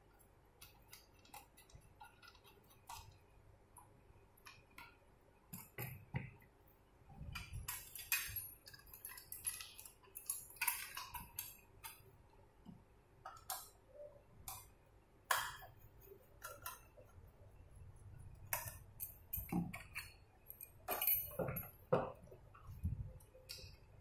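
Irregular clicks, light metallic clinks and knocks from stainless-steel smart door lock parts being handled and fitted together, with a few dull thumps as pieces are set down on a wooden table near the end.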